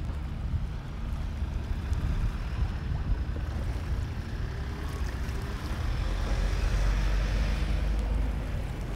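Wind buffeting the microphone, a heavy uneven low rumble, over outdoor ambient noise. A swell of rushing noise rises and falls about six to eight seconds in.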